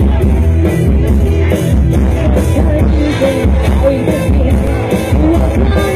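Loud music with a steady beat and a heavy bass line, with some singing.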